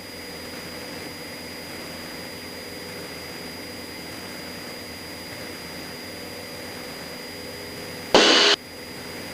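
Cessna 172 engine and cabin noise in flight: a steady drone with a few held tones. A short, loud burst of noise about eight seconds in.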